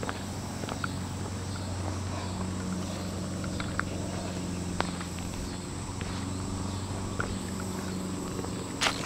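Footsteps of a hiker walking on a wet paved trail: light, scattered clicks about once a second, with a sharper pair near the end. Under them run a steady low hum and a thin, steady high whine.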